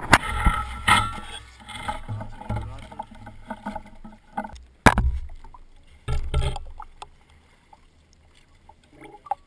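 Handling noise on an action camera mounted on scuba gear: a run of sharp knocks and rubbing as the diving equipment is moved, with the loudest knock about five seconds in, going much quieter for the last couple of seconds.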